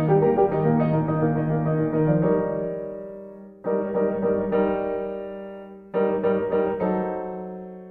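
Background solo piano music: a flowing run of notes, then slow chords struck about every two seconds, each left ringing and fading away.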